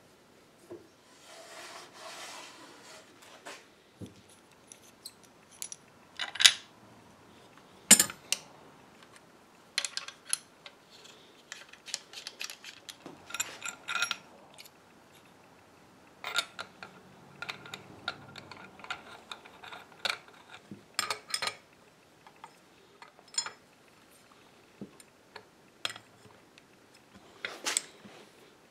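Scattered metal clicks and clanks of workshop tools being handled: first bar clamps being set on a wooden router jig, then open-end wrenches on a router motor's collet nut as a bit is fitted.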